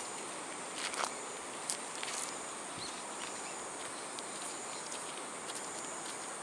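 A steady, high-pitched drone of insects, with a few sharp clicks in the first couple of seconds.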